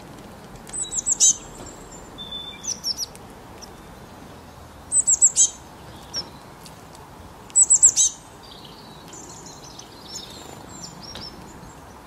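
Small songbird chirping in quick, high, falling notes, four short bursts of several chirps each, the loudest two about five and eight seconds in, then fainter twittering near the end.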